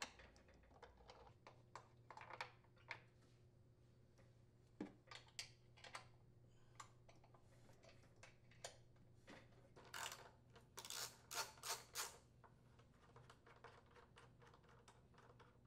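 Faint, scattered clicks and taps of a socket wrench and hands on the engine's metal bolts and blower housing as the housing's mounting bolts are unscrewed. A quick run of louder clicks comes about ten to twelve seconds in.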